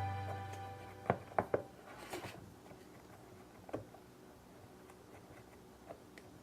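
Music dying away, then a few faint, sharp taps and clicks: three close together about a second in and one more near the middle.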